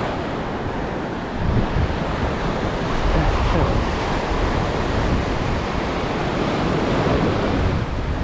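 Small ocean waves breaking and washing over shallow sand, with wind rumbling on the microphone.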